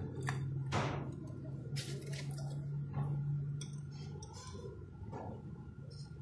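Light clinks and knocks of a plate and dishes being handled while biscuits are set out, over a steady low hum.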